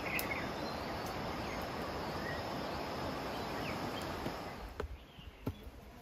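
Steady outdoor ambience: an even rushing hiss with a faint high insect drone and a few faint chirps. It fades out about four and a half seconds in, leaving a few soft ticks.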